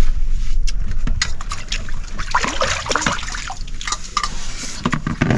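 Liquid pouring and splashing, with a rushing hiss through the middle and a few short clicks.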